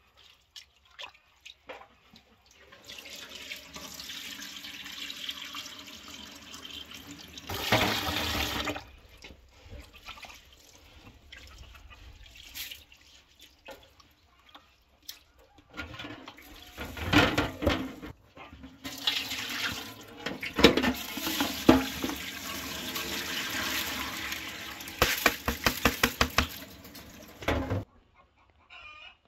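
Rice being washed by hand in a plastic basin of water in a stainless steel sink: water swishing and splashing as the grains are rubbed and stirred, with a tap running in stretches. The sound stops abruptly near the end.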